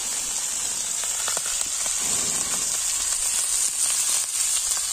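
Whole masala-coated Indian mackerel frying in oil on a flat iron tawa over a wood fire: a steady, high sizzle with faint scattered crackles.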